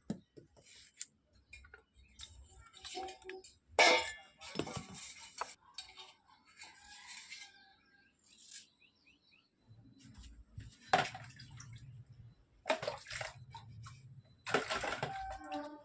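Water being splashed and poured in bursts while kitchen vessels are handled. The strongest bursts come about four seconds in and again three times in the second half.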